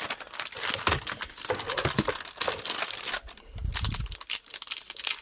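Crinkling and crackling of the clear plastic film wrapped around a new keyboard as it is handled and turned over, with a dull bump about three and a half seconds in.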